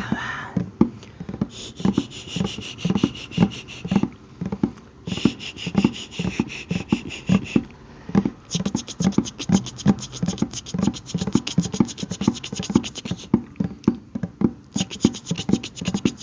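Close-miked ASMR tapping and scratching on a bucket: soft taps about three a second, with stretches of fast scratching that start and stop several times.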